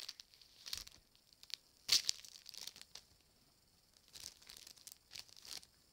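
Plastic trading-card packets being torn open and crinkled by hand: irregular rips and rustles, the sharpest tear about two seconds in.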